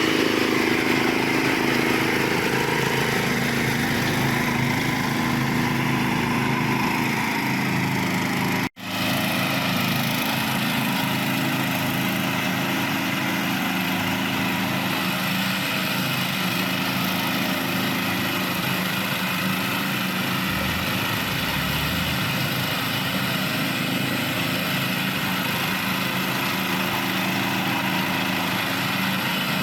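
Ride-on zero-turn lawn mower's 13 hp engine running steadily at a constant pitch, with a sudden split-second gap about nine seconds in.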